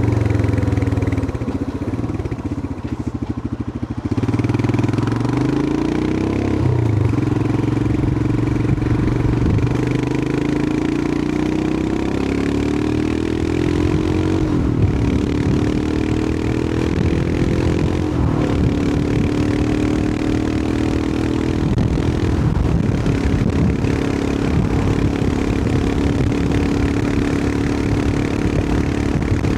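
Royal Enfield Himalayan 411's air-cooled single-cylinder engine running on the move. It eases off and quietens early on, then pulls with a rising note through the middle. The note drops back briefly a couple of times as it changes gear, then settles into a steady cruise.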